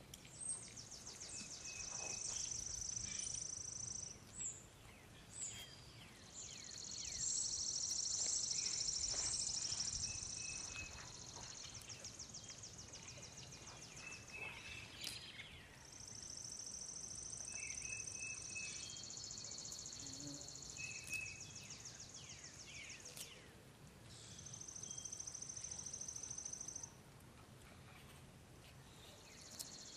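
Insects trilling in high-pitched stretches of a few seconds each, one after another, with short bird chirps in between.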